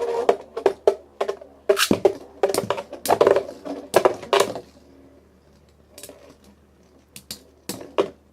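Two metal Beyblades, Lightning L-Drago 100HF and Galaxy Pegasus W105R2F, clashing in a plastic BB-10 stadium. A rapid clatter of hard hits with a ringing tone runs for about the first five seconds, then gives way to scattered clicks as they keep spinning.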